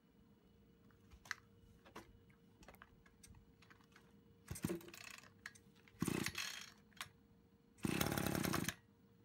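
Brush cutter's recoil starter pulled three times, each pull whirring briefly as the small engine turns over without catching. The last pull is the longest and loudest. Light clicks of handling come before the pulls.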